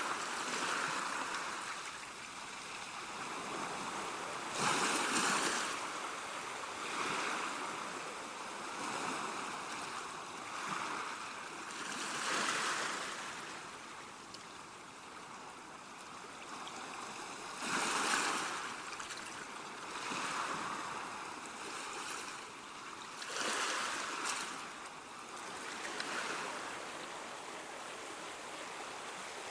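Ocean surf: waves swelling and washing in every few seconds, over a steady hiss of moving water.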